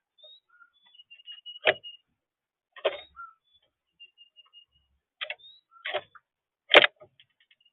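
Faint, thin, high chirps and short runs of chips from small birds, broken by about five sharp, irregular clicks or knocks. The loudest knock comes near the end.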